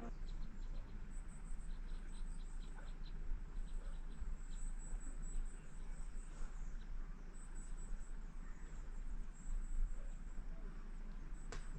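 Insects chirping in the woods: a run of short, evenly spaced high pips over the first few seconds and thin high chirps throughout, over a low rumble of wind on the microphone.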